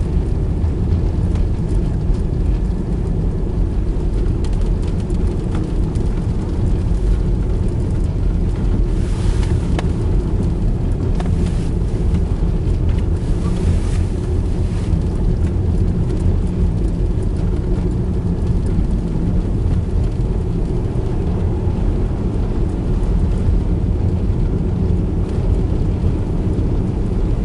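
Steady low rumble of a car driving on an unplowed, snow-covered gravel road: engine and tyre noise with a faint hiss of snow and wind now and then.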